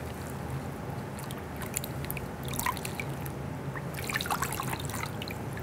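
Water trickling and dripping in a stainless steel bowl as gloved hands soak and wring out a cloth in warm rinse water, busier near the end, over a low steady hum.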